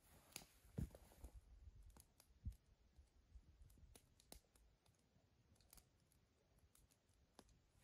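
Near silence, with scattered faint clicks and a couple of soft low thumps in the first few seconds.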